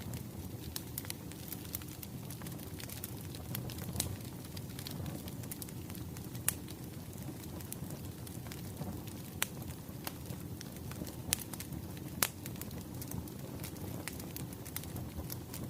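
Wood fire crackling: a steady low rumble of flames with scattered sharp pops and snaps of burning logs.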